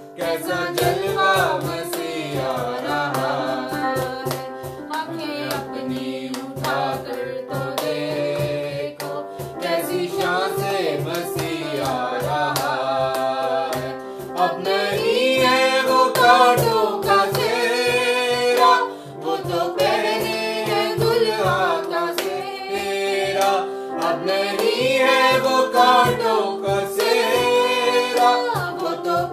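Urdu Christian worship song sung by voices to electronic keyboard accompaniment with a steady beat.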